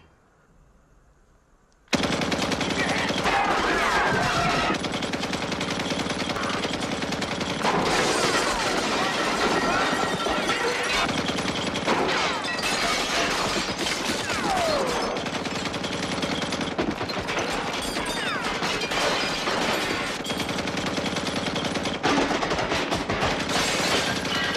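Sustained automatic fire from a truck-mounted M60 machine gun, starting suddenly about two seconds in and running almost without a break, mixed with bullet impacts smashing through the room.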